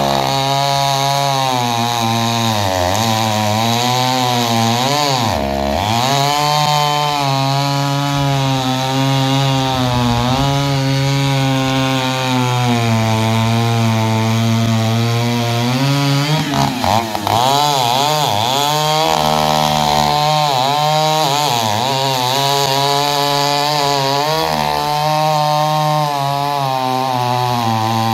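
Two-stroke chainsaw cutting through a log at high revs. Its engine pitch sags and recovers again and again as the chain bites into the wood, with deeper dips about five and a half and seventeen seconds in.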